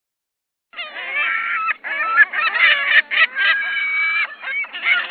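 A sound-effect clip of animal calls, several overlapping pitched calls in bursts with short breaks, starting suddenly about a second in after silence.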